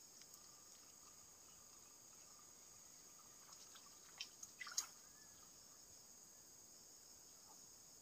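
Near silence with steady faint insect buzzing. About four to five seconds in come a few small ticks and a light watery plop, the float rig landing in the pond.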